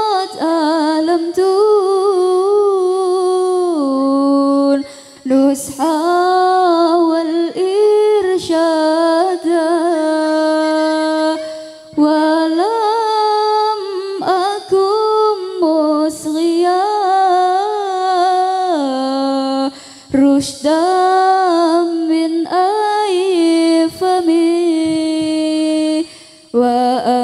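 A solo female voice singing an Arabic song about mother, teachers and guidance, in long held and ornamented phrases with vibrato, each lasting a few seconds with short breaths between.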